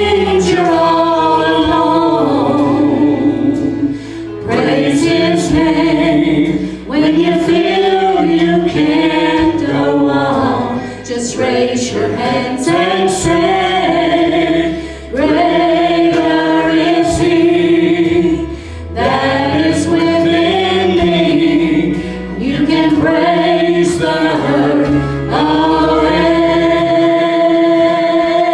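Live gospel worship song: a male lead singer and a small group of women singers, in harmony over a steady bass line and drum beat.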